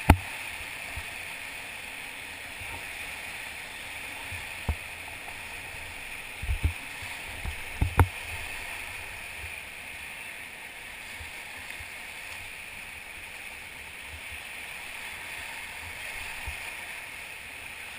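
Whitewater of the Ocoee River rushing steadily, with a few dull knocks, the loudest about eight seconds in.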